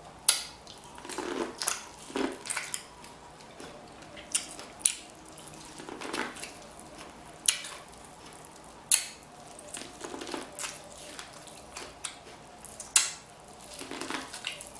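Close-miked eating sounds: wet mouth smacks and chewing of seafood boil, with several sharp clicks spaced a few seconds apart.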